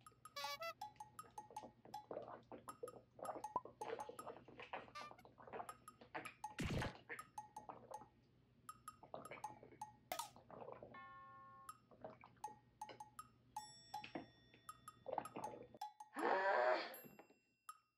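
Large plastic water bottle being handled and drunk from, its thin walls giving off irregular crinkling clicks. About sixteen seconds in comes a louder, short voice-like grunt.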